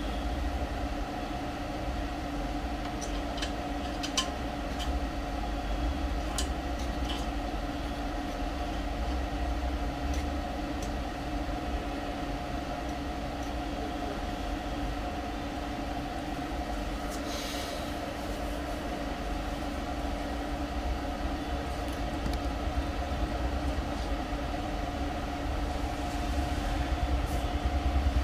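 A steady mechanical hum with a constant pitch, broken by a few light clicks and taps.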